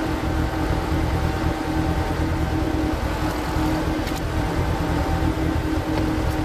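Power tiller engine running steadily, driving a screw-type cone log splitter, sped up to double speed, with a few faint clicks.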